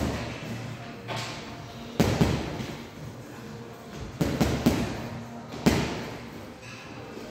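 Boxing gloves punching a hanging heavy bag, each hit a sharp thud that rings on in the hall. The hits come singly about a second apart, then a quick run of three about four seconds in and one more soon after.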